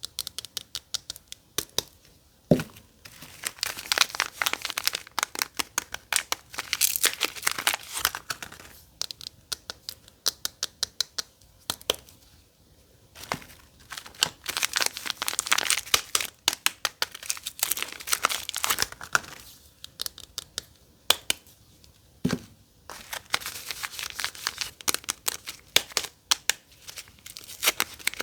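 Soap packaging being torn open and crinkled by hand, in long bursts of dense crackling separated by scattered sharp clicks, with two soft knocks.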